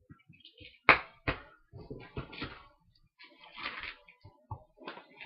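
A cardboard shipping box being opened and handled by hand: two sharp knocks about a second in, then irregular rustling and scraping as the flaps and packaging are worked.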